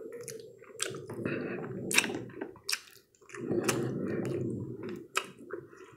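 Close-up chewing and wet lip smacks of a person eating a sauced fried chicken wing, pulling the meat off the bone; the breading is soft, not crispy, so there is no crunch. Several sharp smacks stand out, with a brief pause about halfway through.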